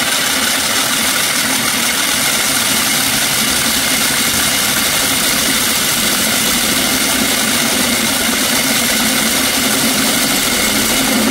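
Motor-driven 3D-printed plastic planetary gearbox spinning fast: a loud, steady whirring drone with a hum low down, which cuts off suddenly at the very end.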